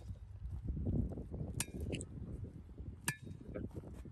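Hand tamper working the soil and broken stone of a ramp's sub-base: low, irregular thudding, with two sharp clinks about a second and a half apart. This is the base being compacted before fresh concrete is poured.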